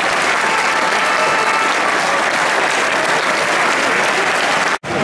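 Large football stadium crowd making a loud, steady din of cheering and clapping. The sound drops out abruptly for an instant near the end.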